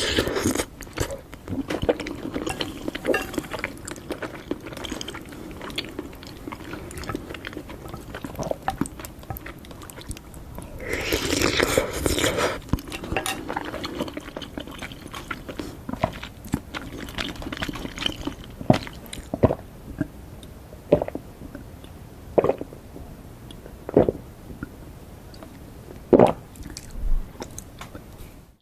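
Close-miked eating of noodles and soft-boiled egg: wet chewing and mouth sounds with sharp clicks of utensils on the dish. A louder, longer noisy stretch comes near the middle, and the later part is quieter with single sharp clicks every second or two.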